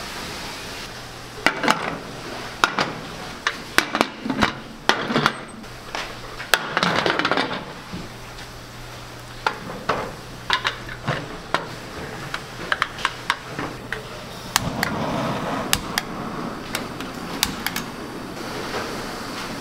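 Kitchen clatter of pots, bowls and utensils: many separate sharp clinks and knocks at an uneven pace over a steady low hum.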